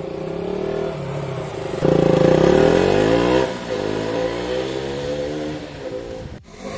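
KTM Duke 200's single-cylinder engine running at idle, revved about two seconds in, then its revs falling back and settling.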